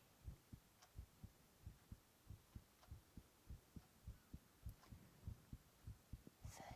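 Faint human heartbeat, a man's, picked up at the chest: a steady run of low thumps, many of them in lub-dub pairs.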